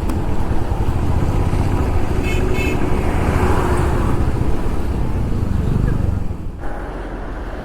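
Riding noise from a motorcycle: a steady rumble of engine, wind and road, with two quick horn beeps about two and a half seconds in. The noise eases a little near the end.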